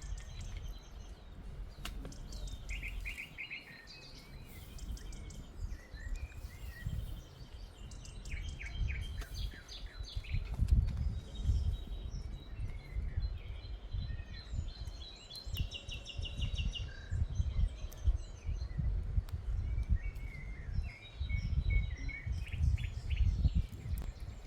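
Several wild birds chirping and singing, with quick trills of repeated notes throughout, over a low, uneven outdoor noise that swells about halfway through and again near the end.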